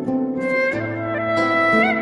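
Instrumental music with a melody in long held notes over a plucked-string accompaniment. A low bass note comes in a little under a second in.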